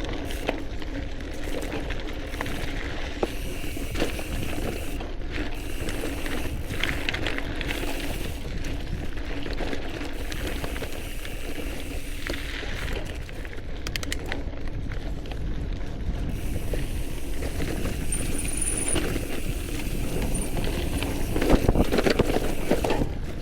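All-City Gorilla Monsoon gravel bike riding over dirt singletrack: a steady rumble of tyres on the trail with clicks and rattles from the bike over bumps, growing louder and rougher near the end.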